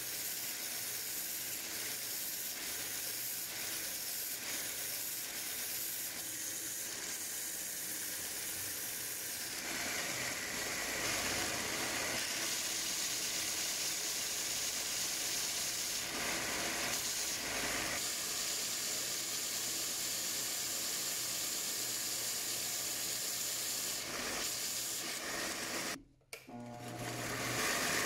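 Belt sander running steadily, with a louder, brighter rasping hiss from about ten seconds in as the wooden knife-handle scales are pressed against the belt. The sound drops out briefly near the end, then resumes.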